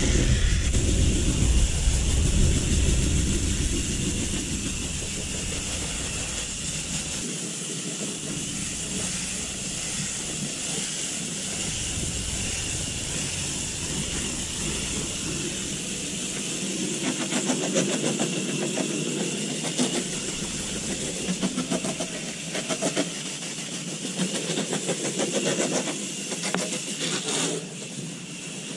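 Hose spray nozzle hissing as a jet of water rinses a heavily lint-clogged air-conditioner condenser coil, the water spattering against the metal fins. A low rumble runs under it for the first several seconds.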